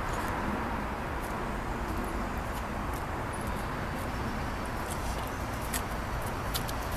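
Steady car-park background noise with a faint hum of traffic, and a few light clicks and rattles in the second half.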